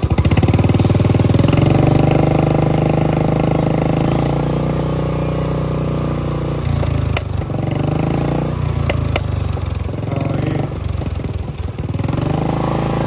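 Royal Enfield Bullet 350 single-cylinder engine with a loud aftermarket shot-bottle silencer, revved hard and held. The throttle drops about six and a half seconds in, with a few sharp cracks from the exhaust, then the engine is revved up again near the end.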